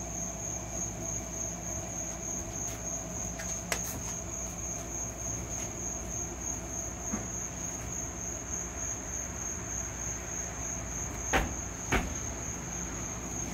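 A cricket trilling steadily on one high pulsing note over a low background hum. Near the end come two sharp knocks, half a second apart, as a door is pulled shut.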